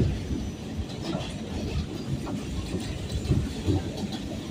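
R46 New York City subway car running along the track: a steady low rumble with irregular clacks and knocks from the wheels over the rail joints.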